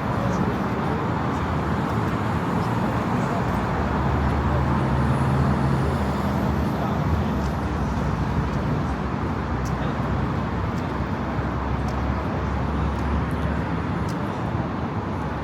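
Steady road traffic on a city street: car engines rumbling and tyres hissing, swelling a little as a vehicle passes about five seconds in.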